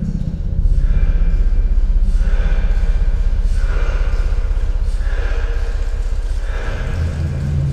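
A steady low rumble with a person's heavy breaths over it, one about every second and a half.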